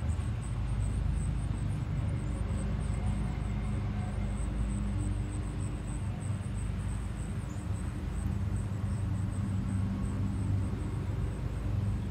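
Steady low engine rumble with a faint hum.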